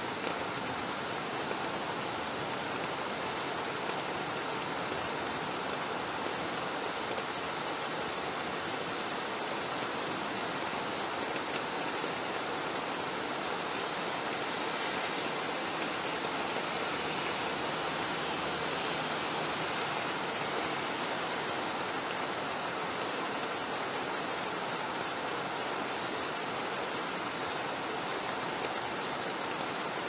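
Steady rain falling, an even unbroken hiss with no single drops standing out.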